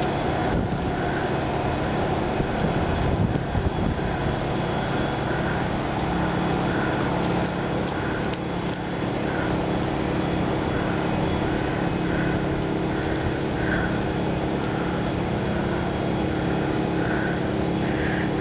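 Generators running with a steady hum, while ice breaks off ice-coated trees and clatters down, loudest about three seconds in.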